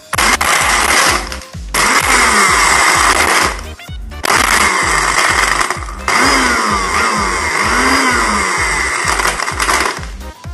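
Sharp countertop blender crushing ice cubes, run in spells of about two seconds with brief stops between them. Background music with a steady beat plays underneath.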